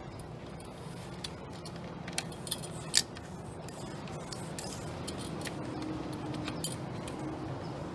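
Bicycle drivetrain being worked on a repair stand: light metallic clicks and ticks of chain and derailleur, the loudest about three seconds in, over a steady low hum.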